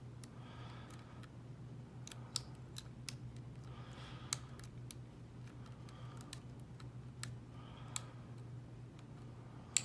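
Lock pick and tension wrench working the pins of a Falcon small-format interchangeable core (SFIC) cabinet lock in single pin picking: scattered, irregular sharp metallic clicks with light scraping in between, over a steady low hum.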